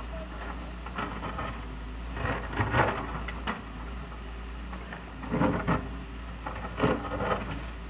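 Doosan DX140W wheeled excavator's diesel engine running steadily at work, with irregular scraping and knocking of rock and soil every second or two as the bucket digs into the hillside.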